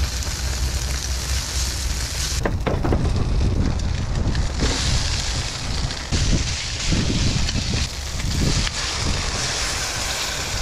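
Wind buffeting the microphone with a low rumble, over food sizzling in a frying pan on a portable stove. The high sizzling hiss starts and stops abruptly several times.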